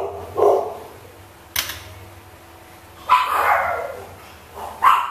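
A dog barking: a few short barks, the longest about three seconds in, with a sharp click between them.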